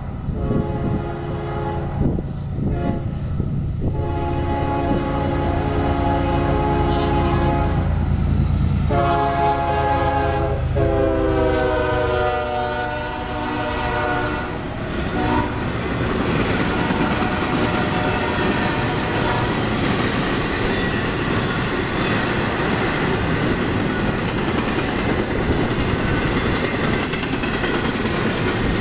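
CSX diesel freight locomotive sounding its multi-chime air horn in several long blasts as it approaches a grade crossing, with its engine rumbling underneath. The last blast drops in pitch as the locomotive passes. After that, a string of empty flatcars rolls by with steady wheel clatter over the rails.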